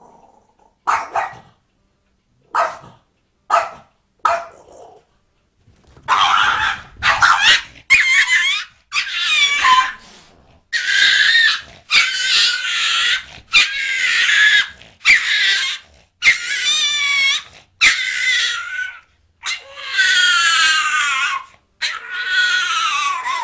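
A small dog barking: a few short, separate barks in the first few seconds, then a long run of high-pitched barks close together from about six seconds on.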